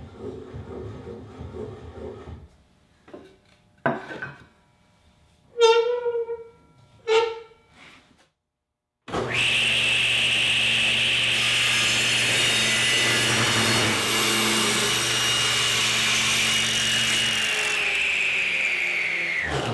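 Table saw ripping (resawing) an ash board: a loud steady high whine of the blade cutting, which begins suddenly about nine seconds in and drops in pitch near the end as it winds down. Before that come a few knocks of the board being handled.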